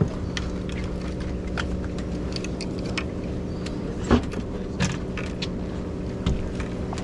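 Steady low hum of a docked boat's idling engine, with scattered clicks and clatter of carried fishing gear and a sharp knock about four seconds in.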